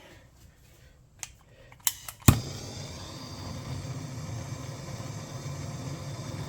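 A few sharp clicks, then a loud pop about two seconds in as a gas blowtorch lights, followed by the steady hiss of its flame. Heat is being put on a part that won't come off.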